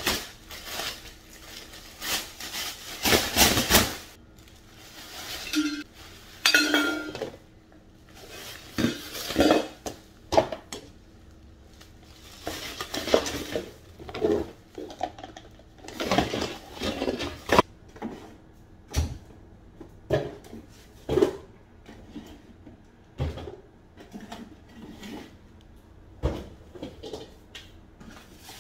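Kitchen clean-up handling sounds: a plastic trash bag shaken open and rustling, with the loudest burst of rustling about two to four seconds in, then a string of separate clinks, knocks and clatters as dishes and containers are handled and put into a cabinet.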